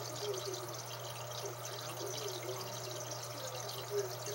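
Aquarium water trickling and bubbling continuously, with small gurgles, over a steady low hum.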